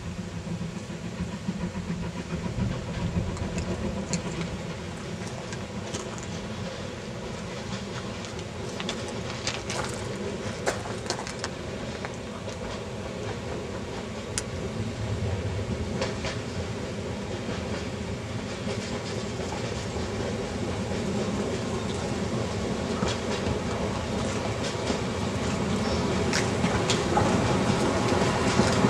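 Narrow-gauge steam freight train approaching, its wagons' wheels clicking and clattering over the rail joints over a steady rumble, growing louder toward the end as the locomotive draws near.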